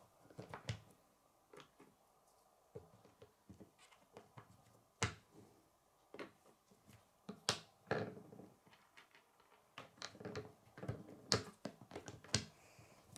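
K'nex plastic pieces clicking and snapping together and knocking on a wooden tabletop as they are fitted by hand: irregular small clicks, with a few sharper snaps about five, seven and a half, and eleven seconds in.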